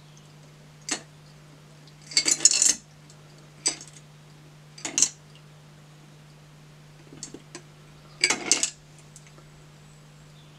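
Ice cubes rattling and clinking inside a steel-and-glass Boston cocktail shaker as it is tipped to strain the drink into a glass, in about six short clattering rattles spaced a second or two apart. A low steady hum runs underneath.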